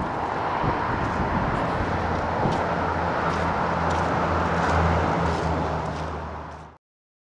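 Steady outdoor traffic noise with a low engine hum, which cuts off abruptly to dead silence near the end.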